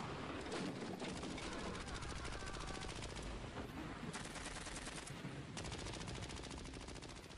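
A fast, continuous rattle of sharp clicks, like distant automatic gunfire, easing off briefly twice.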